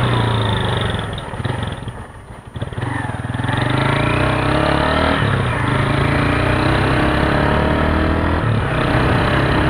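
Motorcycle engine running under way. It drops off briefly about two seconds in, then picks up with a rising note as the bike accelerates, and settles to a steady cruise.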